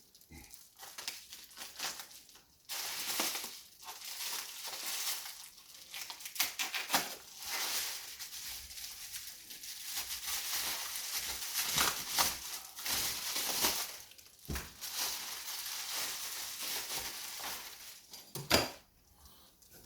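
Plastic packaging bags crinkling and rustling as accessories are unwrapped from a radio's box, with a few light knocks of items being handled and one sharper knock near the end.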